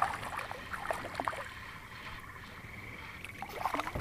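A small fish being reeled in on a spinning rod and swung up out of the water, with short bursts of splashing and handling noise just after the start and again near the end, over a faint steady high whine.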